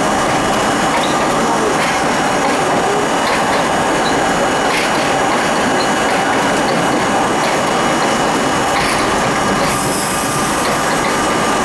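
R32 subway car running along the track, heard from inside the car: a steady rumble of wheels and rail with irregular clicks, most likely wheels passing over rail joints. A brief hiss rises near the end.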